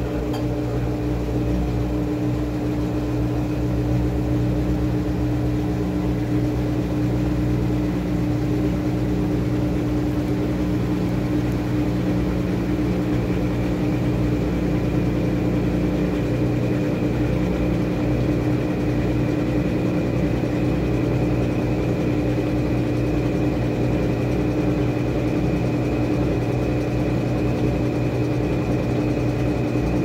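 Top-loading washing machine with a central agitator spinning a load of clothes: a steady motor whir with a constant hum and a faint high whine above it.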